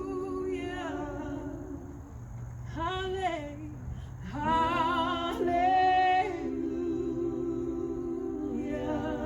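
A woman singing a slow worship chorus in long, drawn-out phrases with wavering held notes. The loudest phrase comes about four to six seconds in.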